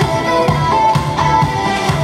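Recorded music with a steady beat, played as the backing track for a dance routine.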